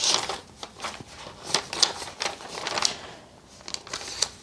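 Paper pages of a thick notebook being turned and handled: a handful of short, papery swishes and rustles at an uneven pace.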